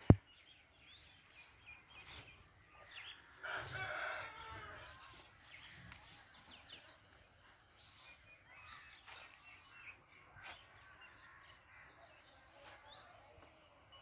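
A rooster crows once, starting about three seconds in, over small birds chirping throughout. A sharp click comes at the very start.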